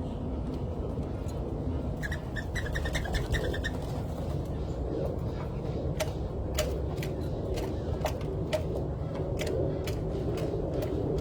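Backyard birds calling: a quick run of short, rapid chirps about two seconds in, then a few short sharp calls or ticks spaced apart. A steady low rumble runs under them.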